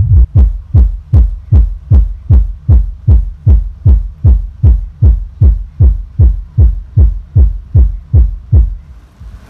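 Subwoofers loaded with Sweton 18PT1500 18-inch 1500 W drivers playing a bass test track of rapid, evenly spaced kick thumps, about two and a half a second, each thump dropping in pitch. The thumps get quieter near the end.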